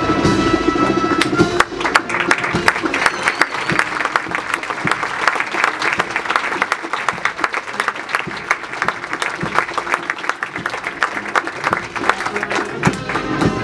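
Audience applauding, beginning about two seconds in and going on steadily, with band music playing underneath; the music comes through clearer again near the end.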